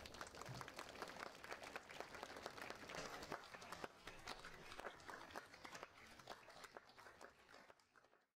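Audience applauding, a dense patter of hand claps that gradually fades away and stops just before the end.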